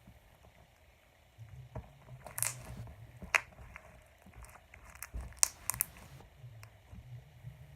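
Foam bead slime being squished and pressed by hand, making scattered sticky clicks and crunchy crackles from about two seconds in, with a couple of sharp pops.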